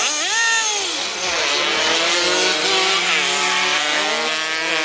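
Engine revving: a quick rise and fall in pitch about a quarter second in, then a steady engine note with slower rises and falls in pitch.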